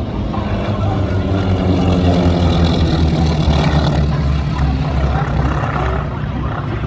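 Radial piston engines of a pair of North American T-28 Trojan warbirds flying by. The propeller-driven engine drone swells to its loudest around the middle of the pass and then eases slightly.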